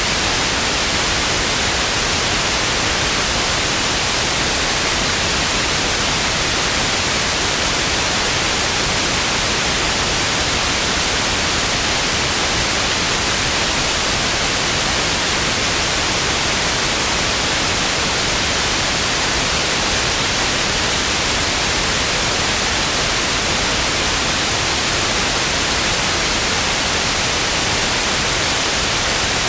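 Television static: a steady, unchanging hiss of white noise, loudest in the upper range, with no breaks or changes.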